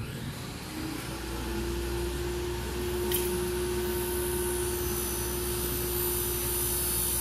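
Electric blower motor switching on about a second in, its whine rising briefly then holding steady over a low rumble, with a hiss of rushing air joining about three seconds in.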